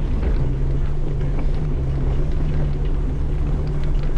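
Side-by-side UTV engine running at a steady pitch as it drives along a trail, with scattered light knocks and rattles.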